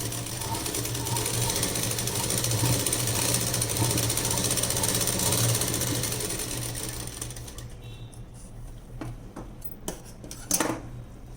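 Sewing machine running steadily as it stitches fabric, winding down and stopping about seven seconds in. A few clicks and rustles of the cloth being handled follow.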